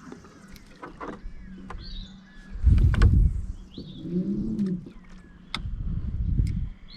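Birds calling in short chirps a few times, with scattered sharp clicks and knocks, a brief low growl-like sound about four seconds in, and two low rumbling thumps, the loudest sounds, about three and six seconds in.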